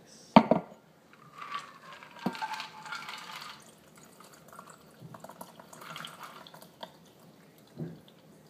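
A martini glass knocks down onto a wooden table, then liquid is poured from a stainless steel cocktail shaker into it, trickling and dripping in spells, with light clinks and a couple of smaller knocks.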